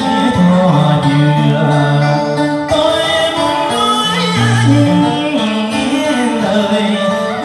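A man singing a Vietnamese vọng cổ (cải lương) song into a microphone, his voice holding and bending long notes over amplified instrumental accompaniment.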